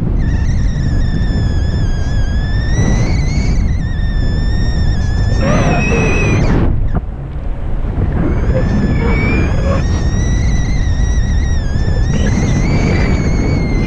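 Wind buffeting the microphone of a camera carried in paraglider flight, a heavy rumbling rush that dips briefly about halfway through. Over it runs a thin high whistle that wavers slowly in pitch.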